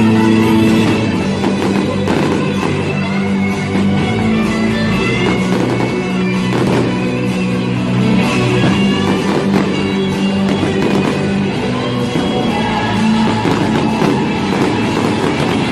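Background rock music with guitar playing steadily throughout.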